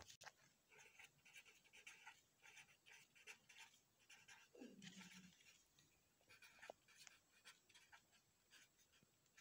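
Pen scratching on paper as a word is handwritten, in quick irregular strokes, faint. A short tone falling in pitch sounds once a little before halfway.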